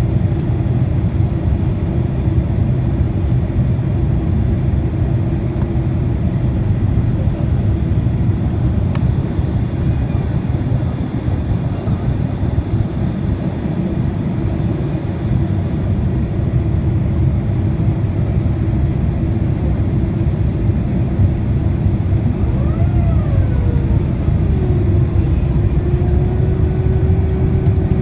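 Cabin noise inside a Boeing 767-300ER in flight: a steady low rumble of engines and airflow with a constant hum. About 23 seconds in, a tone glides up and down in pitch and then settles into a steady hum.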